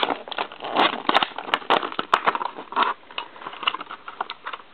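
Plastic blister packaging crackling and crinkling in quick, irregular snaps as it is pried and torn open by hand, the noise thinning out near the end.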